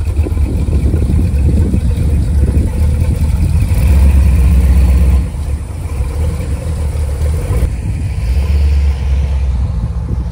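The engine of a 1932 Ford-style hot rod coupe running at idle, a deep, choppy exhaust rumble that swells louder from about three and a half to five seconds in.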